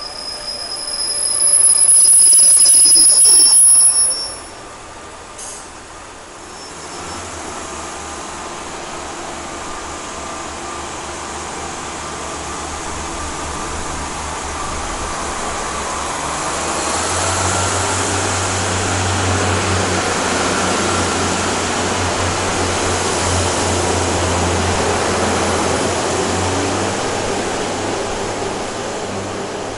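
A Class 142 Pacer diesel railbus: its wheels squeal loudly and high-pitched for the first few seconds as it moves through the station, then its underfloor diesel engine runs with a steady low drone that grows louder about halfway through and eases near the end.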